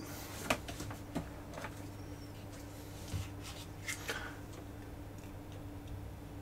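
Faint scattered clicks and small rustles of wires and a soldering iron being handled during soldering, over a steady low hum.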